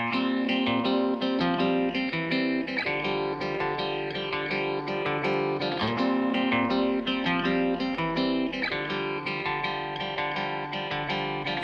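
Background music: guitar-led instrumental with plucked and strummed notes.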